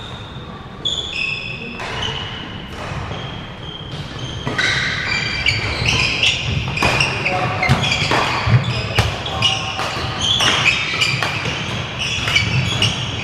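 Badminton rally: rackets hitting the shuttlecock with sharp cracks, shoes squeaking and feet thudding on the wooden court floor. The hits and footwork get busier about four seconds in.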